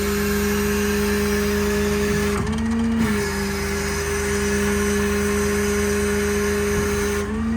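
Service truck's hydraulic pump running as the crane outrigger cylinder extends up and then down: a steady whine that rises briefly in pitch about two and a half seconds in and again just before the end.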